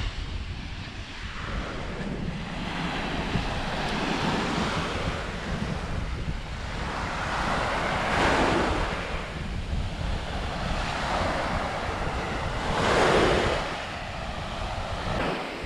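Small waves breaking and washing up a sandy beach, with wind buffeting the microphone as a low rumble. The surf swells louder twice, about halfway through and again near the end.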